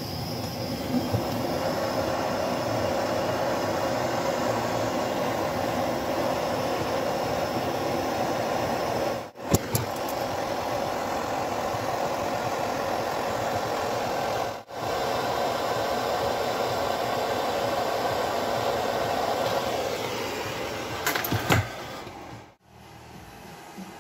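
Handheld butane gas torch burning steadily with a rushing hiss. It drops out briefly twice, and a few sharp clicks come shortly before it stops near the end.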